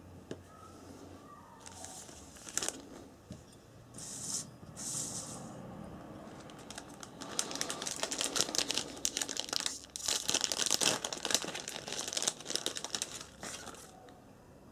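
Crinkly packaging rustling and crackling as it is handled while a lantern mantle is taken out for fitting. A few short bursts come first, then dense crinkling from about halfway through until near the end.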